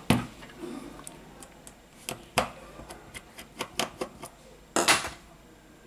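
Scattered light clicks and ticks of a precision screwdriver working small screws out of a smartphone's mainboard, with a few sharper knocks as the phone is handled: at the start, about halfway and near the end.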